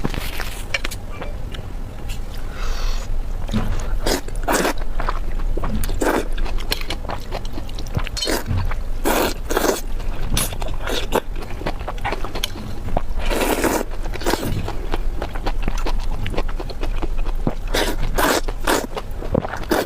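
Close-miked eating sounds: irregular chewing and crunching bites as food is eaten, with a few longer, noisier mouth sounds.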